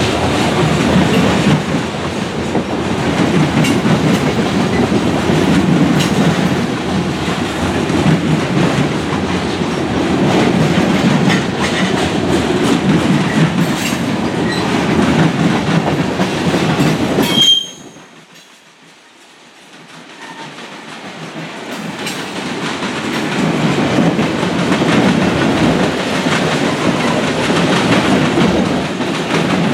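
Freight cars (covered hoppers and tank cars) rolling past at close range: a steady low rumble with the clickety-clack of wheels over rail joints. A brief high wheel squeal comes just before the sound drops out abruptly about two-thirds of the way through, then fades back in over a few seconds.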